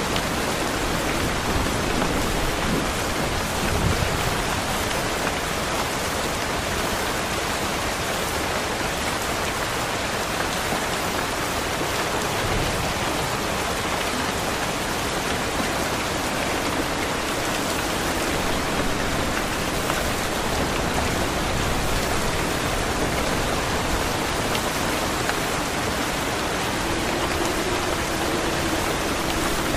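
Steady rain falling, an even hiss of drops, with a low rumble coming up near the end.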